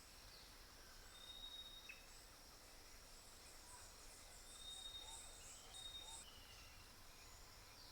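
Faint outdoor bird song: a few thin, held whistled notes and a quick run of high chirps over a steady high insect hiss.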